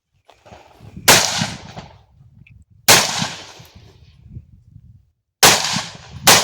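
Rifle shots from a carbine on a practical-shooting course: four single shots at uneven intervals, the first three well spaced and the last two about a second apart, each followed by a rolling echo.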